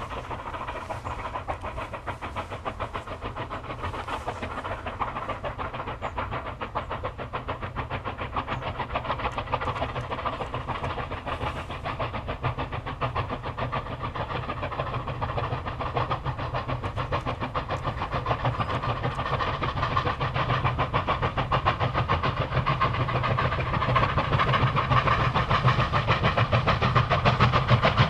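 Two China Railways QJ 2-10-2 steam locomotives double-heading a freight train, working hard with a quick, steady stream of exhaust chuffs. The beats grow steadily louder as the engines approach.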